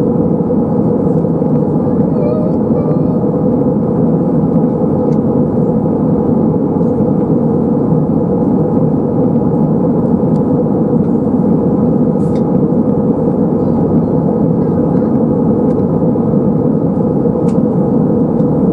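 Steady in-flight cabin drone of an Airbus A320-232, its IAE V2500 turbofans and the rush of air along the fuselage heard from a window seat over the wing. A few faint steady tones sit within the drone.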